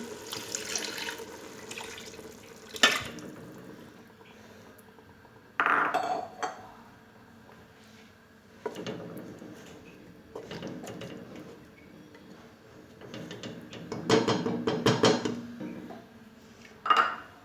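Clatter of a metal cooking pot and utensils as water is poured into the pressure cooker over browned venison and onions in several short pours to make the sauce.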